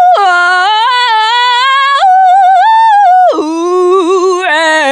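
A woman singing alone with no accompaniment in showy pop vocal runs. Long held notes step up and down, then, a bit past the middle, drop lower into fast wavering trills. It is an over-ornamented style that is meant to sound terrible.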